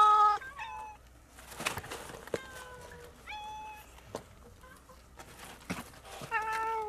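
Cats meowing as they beg for food, about five separate meows. A loud one comes at the very start, a fainter falling one about two seconds in, and another loud one near the end, with a few sharp taps in between.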